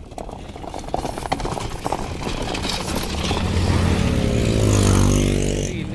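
Racing bullock carts clatter past, then a motorcycle engine passes close by, its pitch falling as it goes past and loudest about five seconds in.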